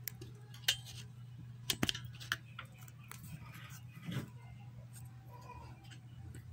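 A few sharp clicks and light knocks of a TV circuit board and small tools being handled on a workbench, spread irregularly, over a steady low hum.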